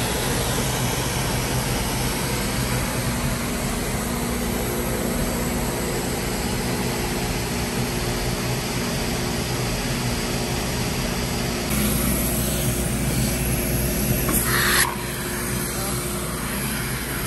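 Car wash machinery running: a steady mechanical drone with a faint hum in it. It gets louder about twelve seconds in and drops back suddenly about three seconds later.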